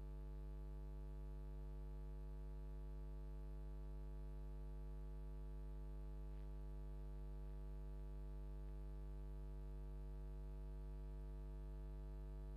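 Steady low electrical mains hum with a buzzy edge, unchanging throughout: interference picked up in the recording or streaming chain.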